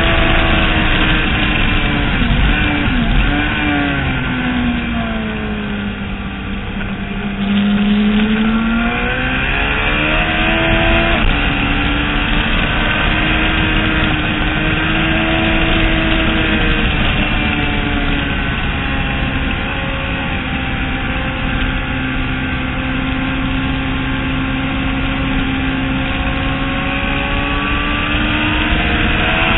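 Road-racing motorcycle engine at high revs on track, heard from on the bike. The engine note drops off through a corner a few seconds in, then climbs sharply as the throttle opens about 8 seconds in, and stays high with smaller rises and dips.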